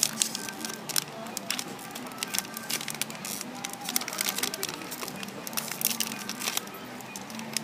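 Toy packaging being opened and handled by hand: irregular crinkling and crackling of the box and wrapper, with sharp snaps scattered throughout.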